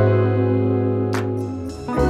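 Background music: soft instrumental with sustained chords and a light percussive hit a little past a second in.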